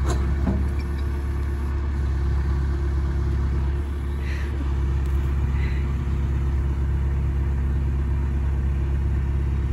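John Deere backhoe loader's diesel engine running steadily. Two faint, short high chirps come about four and six seconds in.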